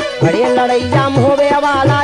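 Fiji folk ensemble music from a 1970s cassette recording: dholak drum strokes keep a steady rhythm under a bending melody from mandolin and harmonium, with majira cymbals.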